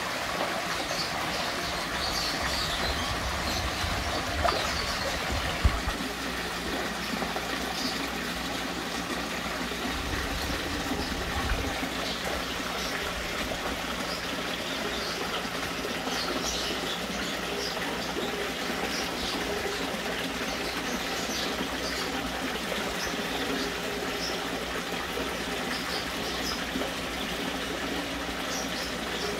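Steady rush of running water at a fish pond, with small scattered splashes and a few low bumps in the first twelve seconds or so.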